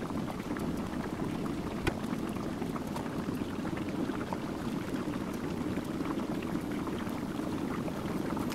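Handheld gas torch burning steadily, a constant low rushing noise with a fine crackle, as its flame heats a steel tube joint for brazing. There is a single sharp tick about two seconds in.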